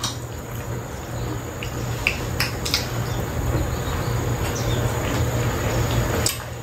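People eating with chopsticks: chewing and mouth sounds with scattered small clicks, over a steady low hum that swells slowly and drops near the end.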